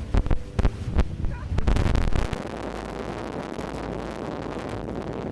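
Storm-force wind gusts hitting an outdoor microphone: irregular buffeting thumps for about the first second and a half, then a steady, dense rush of wind noise.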